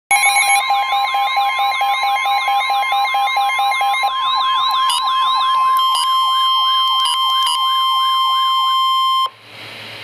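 Midland NOAA weather radio sounding a warning alert: a warbling electronic siren and fast beeping over a steady tone at about 1 kHz, the National Weather Service 1050 Hz alert tone. The beeping stops about four seconds in, and the whole alarm cuts off sharply near the end, leaving radio hiss.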